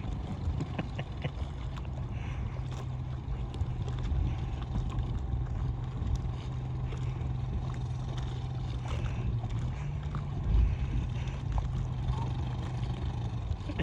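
Small boat's outboard motor running steadily, its hum stepping up a little in pitch about ten seconds in, with a low thump just after.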